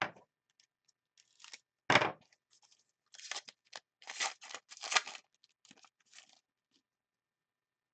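Foil trading-card pack wrappers and cards being handled: short rustling, scraping and tearing noises, loudest about two seconds in and again in a cluster around four to five seconds.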